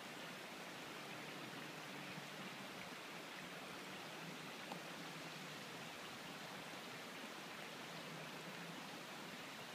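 Faint, steady hiss of outdoor background noise with no distinct events, broken only by one small click about four and a half seconds in.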